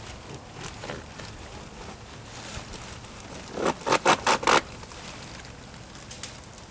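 Quick run of four or five short rasping strokes, like tape being pulled or material scraped, about four seconds in, among faint rustling and handling sounds.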